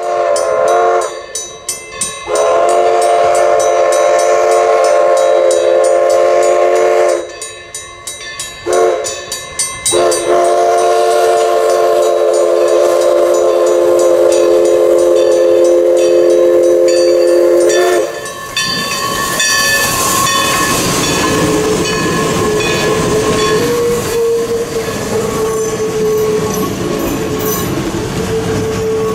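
Everett Railroad No. 11, a 1920 ALCO 2-6-0 Mogul steam locomotive, sounds its chord steam whistle for a road crossing: two long blasts with short toots between them, each blast held steady on several notes. About two thirds of the way through the whistle stops, and the engine and its passenger coaches roll past, rumbling and clattering over the rails.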